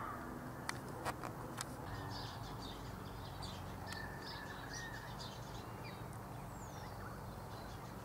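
Faint calls of several wild birds: scattered short, high chirps and a falling whistle, over a steady low background rumble. A few sharp clicks come in the first second or two.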